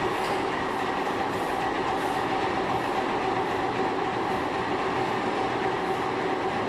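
Metalworking machine tool running steadily while machining a screw conveyor: an even mechanical noise with a steady whine of several tones.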